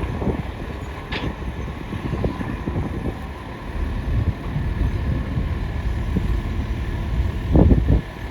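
Excavator at work: a steady low mechanical rumble, with a sharp click about a second in and a heavy low knock near the end. Wind on the microphone.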